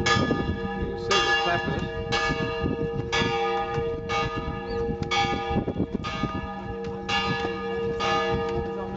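Church bell ringing in its stone bell tower, struck about once a second, each strike ringing on into the next with a steady hum.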